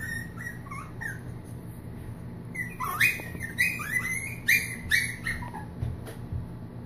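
Puppies yipping in play: a couple of faint high-pitched yips near the start, then a quick run of about seven short yips about halfway through.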